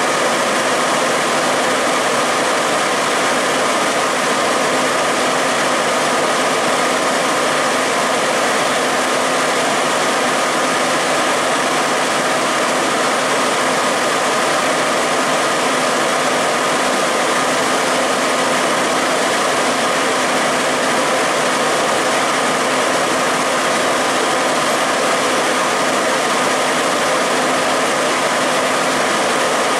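Fire engine running steadily at close range: a constant loud engine noise with a faint steady whine through it.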